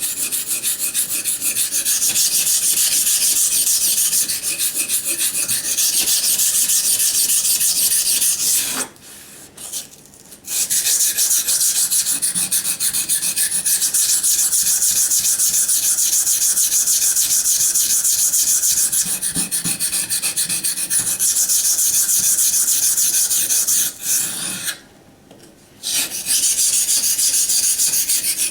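SOG Flash 2 knife blade scraped in rapid back-and-forth strokes on a wet waterstone, grinding the edge down to remove micro-chipping. The strokes stop briefly twice, about 9 s and 25 s in.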